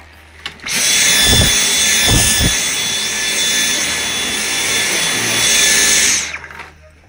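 Dyson cordless stick vacuum switched on about half a second in: a steady high whine over the rush of suction as it runs on a rug, then switched off about six seconds in.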